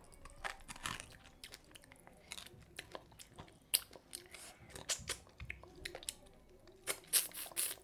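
A person eating with the microphone close to the mouth: chewing with crisp crunches and wet mouth clicks at irregular intervals. The sharpest ones come a little before four seconds in and again around seven seconds in.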